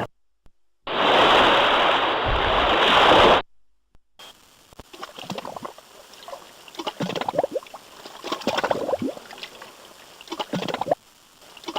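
Water sound effects in two short clips: first a loud, even rush of water for about two and a half seconds, then, after a brief gap, irregular splashing and sloshing.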